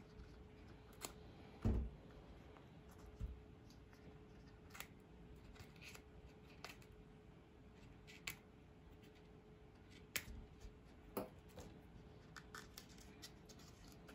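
Small scissors snipping through the leathery shell of a blood python egg: scattered faint, sharp snips and clicks, with one louder thump about two seconds in.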